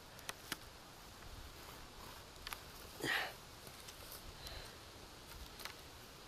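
Faint handling sounds of sisal rope being wrapped and pulled tight around the wooden poles of a tripod lashing: a few light clicks and one short rasp about three seconds in.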